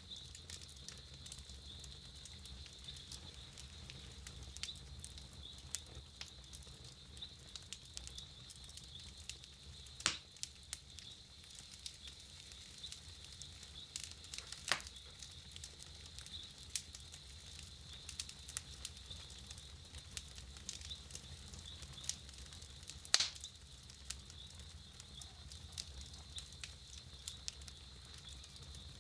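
Campfire crackling: a steady scatter of small snaps and pops, with a few louder pops about ten seconds in, around fifteen seconds in and near the end.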